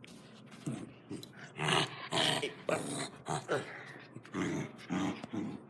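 A dog growling in a series of short, rough bursts, loudest about two seconds in, typical of a dog worked up over a toy.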